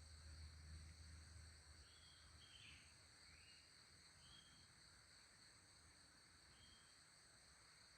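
Near silence: a faint steady high-pitched drone, with a few short faint chirps in the middle and a low rumble that fades in the first second or so.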